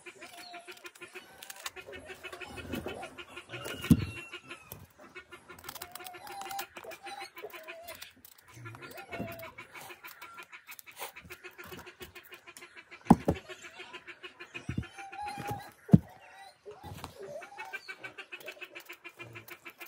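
Chickens clucking now and then over a steady, rapidly pulsing background, with three sharp knocks spread through.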